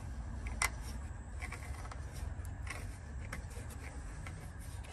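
Light clicks and scrapes of instrument-lamp bulb holders being twisted and worked loose in the back of a car's dash instrument cluster. The sharpest click comes about half a second in, and there is a steady low hum throughout.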